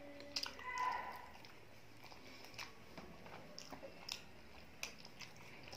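Eating rice and chicken curry by hand: small wet squishes of fingers working the food on the plate, with chewing and lip smacks, and one louder wet mouth sound just under a second in.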